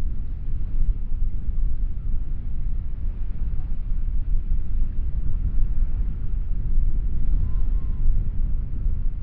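Breeze buffeting the microphone: a steady, gusting low rumble over faint seaside ambience.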